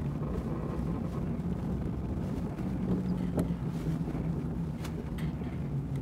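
Car running along a road heard from inside the cabin: a steady low engine and road hum, with a few light knocks in the second half.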